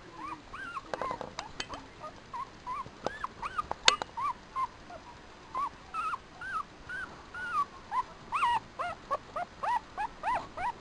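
Eleven-day-old papillon puppy squeaking and whimpering again and again, in short, high, rising-and-falling squeaks at about two or three a second. One sharp click about four seconds in.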